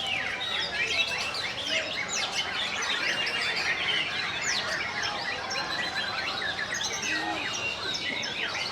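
Many caged songbirds singing at once in a dense, continuous chorus of overlapping whistles, chirps and quick rising and falling phrases, as at a bird-song competition.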